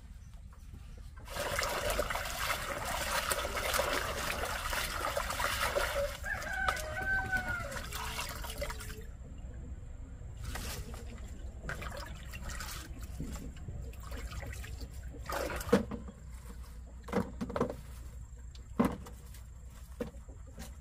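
A rooster crows once, about six seconds in, its call sliding down at the end, over a loud rushing noise that stops about nine seconds in. Scattered sharp knocks and clicks follow.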